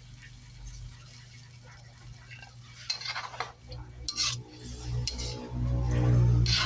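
A metal utensil stirring and scraping in a cooking pan, with several sharp clinks from about halfway through, as coconut milk is stirred into the chicken curry. A low hum swells up loudly near the end.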